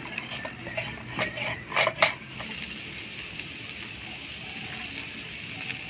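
A hand works mustard paste into a little water in a steel bowl, with a few clinks and scrapes against the bowl. From about two and a half seconds in, there is a steady bubbling hiss of curry broth boiling in the pan.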